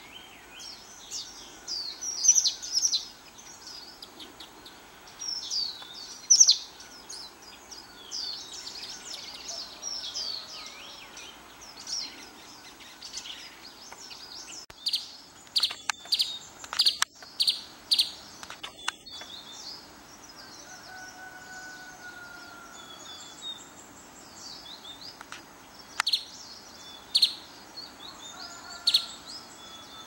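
Several songbirds calling at once: a busy run of high chirps, trills and short whistles, with a few sharp, loud call notes about halfway through. A lower whistle slides downward about two-thirds of the way in and again near the end.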